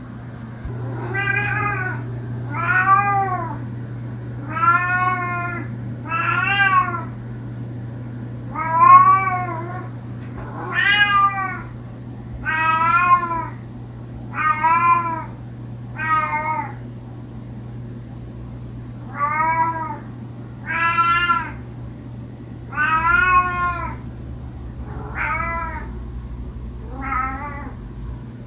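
A domestic cat meowing over and over, about fourteen drawn-out meows that each rise and fall in pitch, coming every one to two seconds with a short pause midway. A steady low hum runs underneath.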